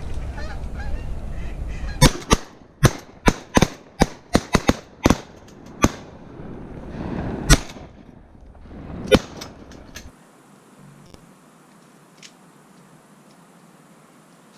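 A volley of shotgun fire from several hunters shooting at incoming waterfowl: about a dozen sharp shots, some in quick runs and others spaced out, starting about two seconds in and ending about ten seconds in.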